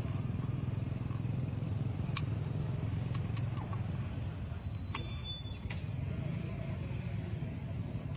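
A steady low engine rumble with a few faint clicks, and a brief high chirp about five seconds in.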